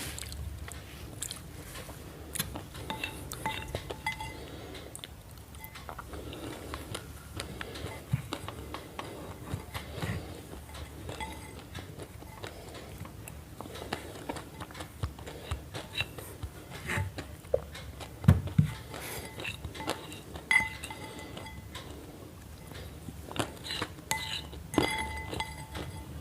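Scattered light clicks and clinks, some with a short ringing tone, like hard objects tapping together, with a louder knock about eighteen seconds in.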